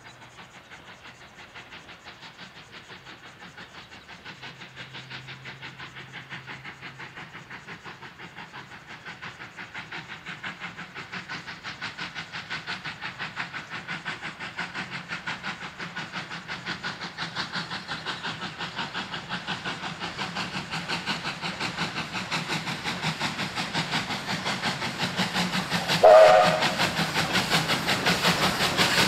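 Victorian Railways J-class oil-burning steam locomotive working hard with a heavy train, its exhaust beating in an even rhythm that grows steadily louder as it approaches. A short whistle blast sounds near the end.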